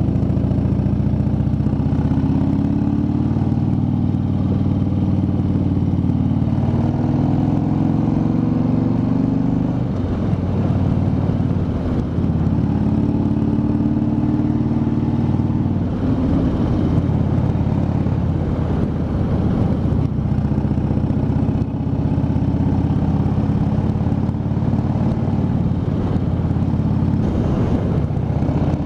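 Harley-Davidson V-twin motorcycle engine running under way, its note rising and falling with the throttle.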